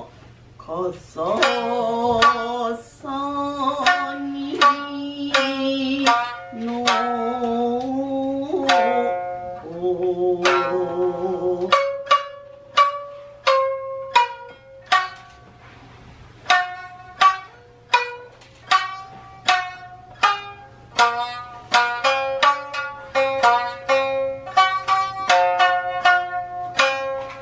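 Shamisen played with a plectrum in a traditional Japanese dance piece, with a woman singing in a wavering, held traditional style over it for about the first twelve seconds. After that the shamisen plays on alone, in plucked notes that come faster and denser toward the end.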